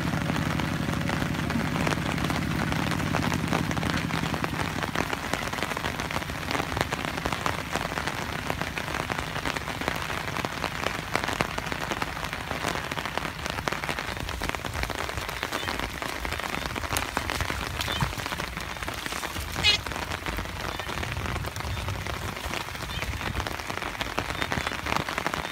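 Steady rain falling on a field. A two-wheel walking tractor's engine chugs over the first few seconds and fades as it drives away, and there is one brief sharp sound about twenty seconds in.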